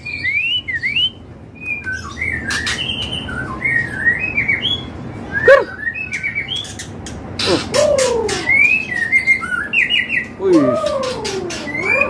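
Caged white-rumped shamas (murai batu) singing in full voice. A continuous run of varied whistled phrases, many rising and falling, some dropping into deep swooping whistles, with sharp clicks scattered through.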